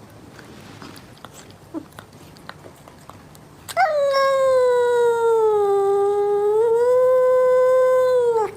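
A cat giving one long, loud, steady yowl lasting about five seconds, starting about four seconds in; its pitch sags a little in the middle, rises again, and the call cuts off sharply. Before it, only a few faint clicks.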